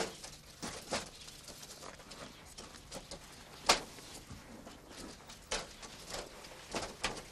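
Split bamboo strips clicking and snapping as a basket is woven by hand: sharp, irregular clicks, the loudest a little past halfway.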